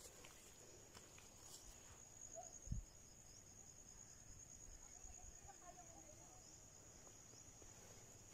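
Near silence over a faint, steady, high-pitched insect trill, with one low thump a little under three seconds in.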